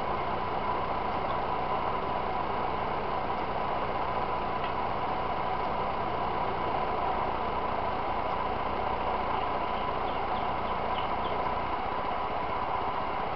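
Steady machine-like background hum with a faint constant tone, even in level throughout; a few light clicks near the end.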